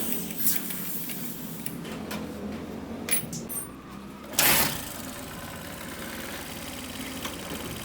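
Honda CD 70's single-cylinder four-stroke engine idling steadily, free of the clutch-side bearing noise now that the clutch side-cover 6000 bearing has been replaced. A few short clicks and one brief loud burst about four and a half seconds in.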